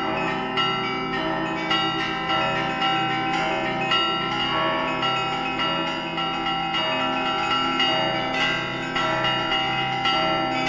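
Russian Orthodox church bells rung in a zvon: quick rhythmic strokes on the small bells over steady strokes of deeper bells, many tones ringing on together.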